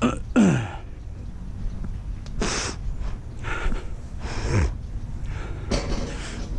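A man breathing heavily: short huffs and puffs about once a second, two of them ending in low falling grunts, over a steady low rumble.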